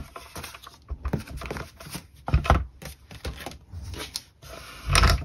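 Paper and card stock being handled and shifted on a craft table: scattered rustles and light clicks, with a dull thump near the end.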